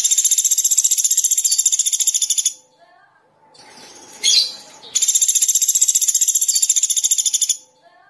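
Small songbird giving long, rapid, evenly pulsed high trills: one about two and a half seconds long, then a sharp chirp, then a second trill of about the same length.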